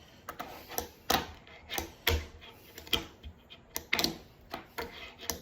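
Fingerboard being ridden on a test run, its wooden deck and flat-face mini wheels giving irregular sharp clicks and knocks against the surface, about eight in five seconds.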